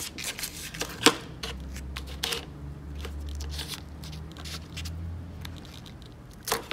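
Blue painter's tape crinkling and rustling as it is pressed over a small metal fitting block and punctured with the point of a self-tapping screw, with scattered sharp clicks, the sharpest about a second in and near the end.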